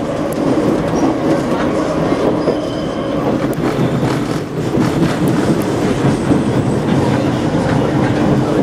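Paris Métro line 8 train running through a tunnel: a steady rolling rumble with the wheels clicking over rail joints and points.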